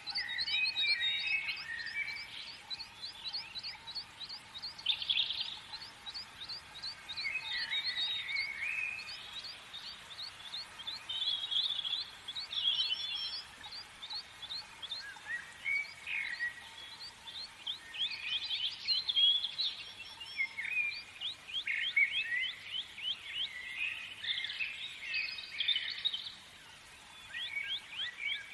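Several songbirds singing and calling together: fast trills of quick repeated chirps mixed with warbled phrases, continuous throughout.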